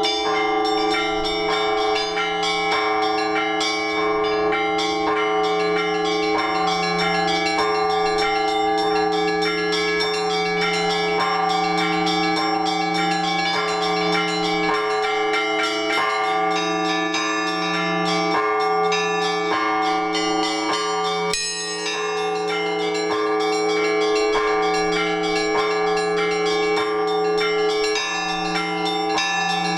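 Orthodox church bells rung by a bell-ringer from the belfry: a low bell struck steadily under a continuous mix of higher, smaller bells, with a brief break a little past two-thirds of the way through.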